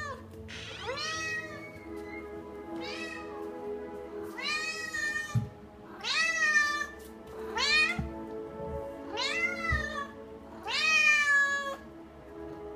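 Lynx point Siamese cat meowing over and over, about seven long calls one and a half to two seconds apart, each rising and then falling in pitch.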